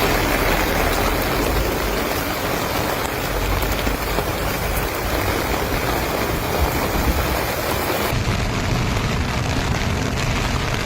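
Heavy rain pouring down, a dense steady hiss. About eight seconds in it cuts to another recording of rain that sounds duller at the top.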